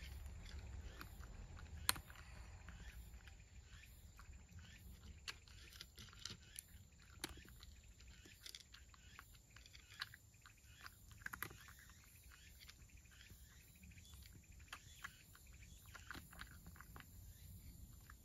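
A cat eating from its dish: faint, irregular small clicks and crunches of chewing, with one sharper click about two seconds in.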